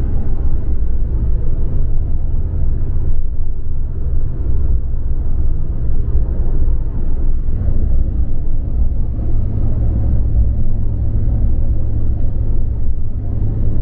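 Steady low rumble of a truck driving at speed, engine drone and road noise with no break.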